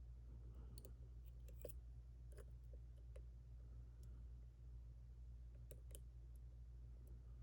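Faint, scattered small clicks of a lock pick working the pins of a JPM Surf lock, a six-pin cylinder with five side pins, over a low steady hum.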